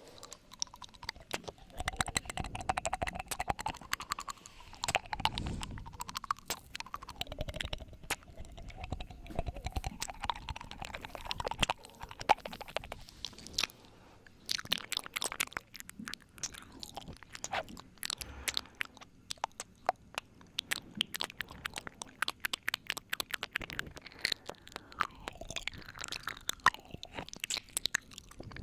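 Close-miked wet mouth sounds of ASMR 'ear eating': rapid, irregular lip smacks, tongue clicks and licking.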